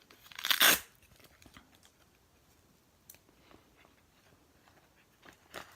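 A metal multi-tool being pushed into its thin fabric sheath: a brief, loud rustling scrape about half a second in, then faint clicks and rustles of handling.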